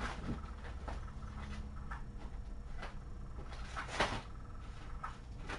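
Light scattered clicks and knocks from kittens playing with toys on the floor, with a louder one about four seconds in, over a steady low hum.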